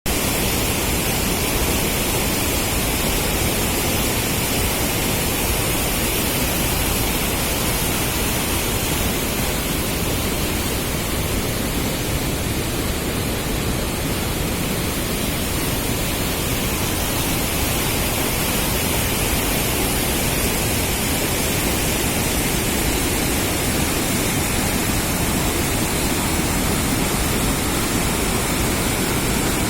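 Waterfall rushing: a loud, steady roar of falling water with no let-up.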